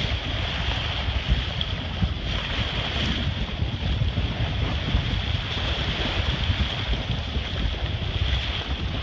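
Wind buffeting the microphone in gusts over the steady wash of choppy water around a sailboat under way.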